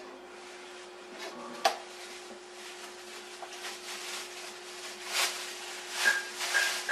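Small child pressing the keys and panel buttons of a console digital piano: scattered clicks and taps, then short high beeps repeating near the end, over a steady low hum.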